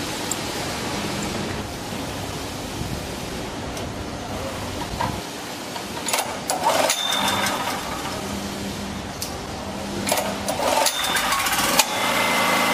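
Honda GX160 single-cylinder OHV engine on an LPG-converted generator being pull-started by its recoil cord, running on LPG with the regulator's enrichment button pressed: a rattle of pulling about six seconds in and again about ten seconds in. Near the end the engine catches and runs steadily.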